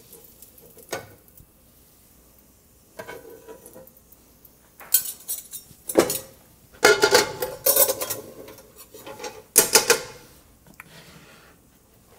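Metal spoon and frying pan clinking and clattering in several short bursts of handling, the pan clattering as it is moved off the stovetop.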